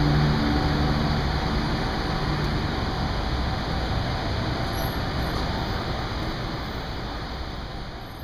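Steady low background noise inside a live poultry market, slowly fading out toward the end.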